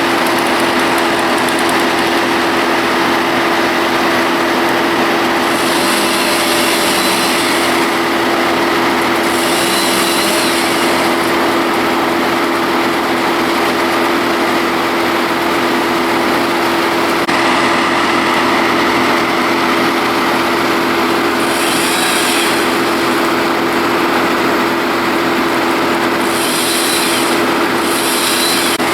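A small petrol engine running at a steady, unchanging pitch, with several brief high hissing bursts over it.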